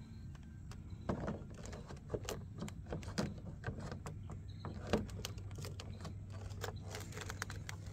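Plastic bubble gun being handled and fitted onto its plastic tray: a scatter of clicks, clacks and light knocks of hard plastic on plastic and on a ribbed liner.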